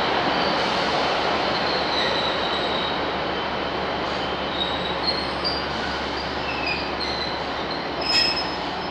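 Class 153 diesel multiple units running slowly along the platform, their wheels giving short high squeals on and off over the steady running noise. A brief knock near the end.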